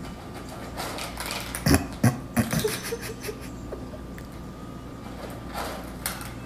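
A domestic cat crunching dry kibble from a bowl: irregular crisp crunches, the loudest cluster about two seconds in.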